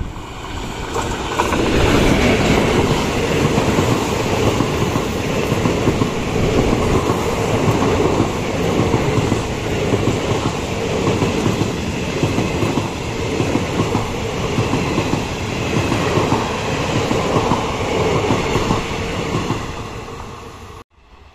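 Electric-hauled passenger express train passing at speed close by: a continuous rumble with rapid clattering of wheels over the rails. It builds over the first couple of seconds, holds as the coaches go by, then falls away near the end and cuts off abruptly.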